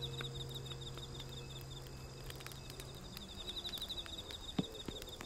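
Insects chirping in a fast pulsing trill, over the scattered crackle and pops of a wood campfire, with one sharp pop near the end. The last guitar chord rings on faintly and dies away about three seconds in.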